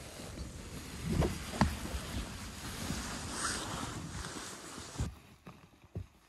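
Canvas tarp rustling and brushing under a hand, with two louder thumps about a second in. The rustling stops suddenly about five seconds in, leaving a few soft knocks.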